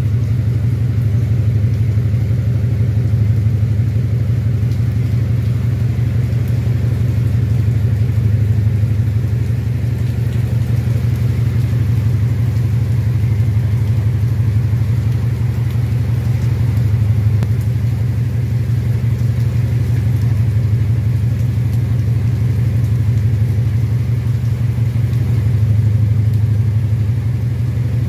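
Steady low engine hum, like a motor vehicle idling close by, even and unbroken, with a faint hiss of rain over it.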